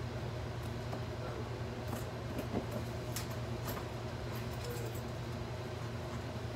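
Papers being handled at a hanging-file cabinet: faint rustles and light taps, a few scattered through the middle, over a steady low room hum.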